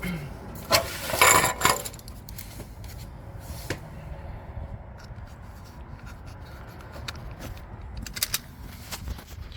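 Small metal parts and tools clinking and scraping, a quick cluster of clinks about a second in and a few more near the end, as bolts and the steel underbody panel are handled.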